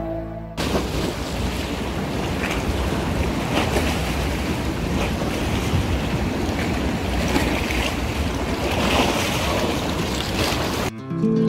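Steady rush of sea surf mixed with wind noise on the microphone. About eleven seconds in it cuts off suddenly and acoustic guitar music starts.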